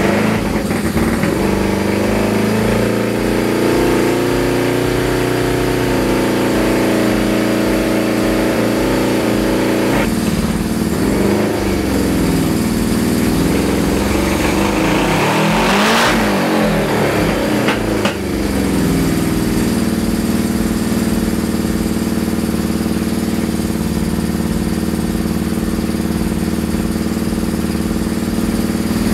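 Suzuki GS550 inline-four motorcycle engine running on its newly fitted Dyna S electronic ignition. The revs rise and fall a few times around the middle, then it settles into a steady idle. It is firing on only three cylinders and running lean, which the owner puts down to a faulty carburettor float needle.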